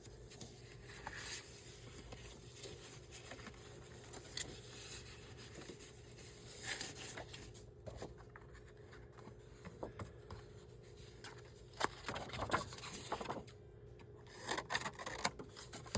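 Paper and card being handled on a craft desk: soft rubbing and scraping with light taps, as a scrap of paper is fitted in to reinforce the page. The handling gets busier and a little louder near the end.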